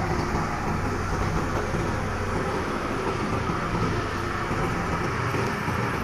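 Diesel engine of a LiuGong crawler bulldozer running steadily under load as the machine pushes a blade of sand.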